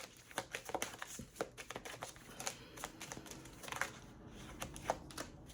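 Tarot cards being shuffled and handled, a run of irregular light clicks and flicks.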